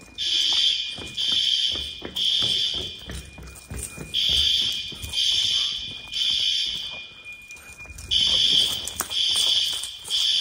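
System Sensor L-series fire alarm horns sounding the temporal-3 evacuation pattern: three short, high horn blasts, a pause, then three more, repeated through. The temporal-3 code is the standard signal to evacuate the building.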